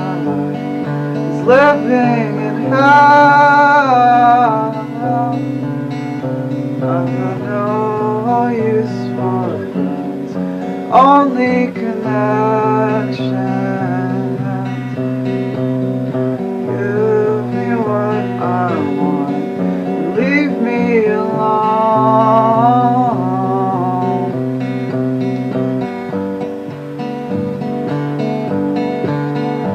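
A song played as background music: acoustic guitar chords with a wavering singing voice over them.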